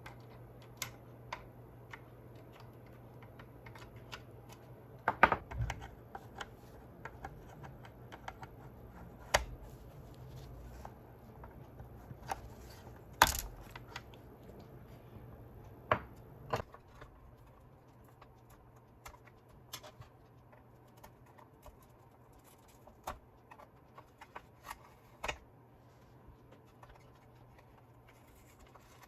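Irregular clicks and taps of small plastic parts and hand tools being handled while the gyro stage mechanism is taken apart, with a few sharper knocks standing out. A low steady hum underneath stops a little over halfway through.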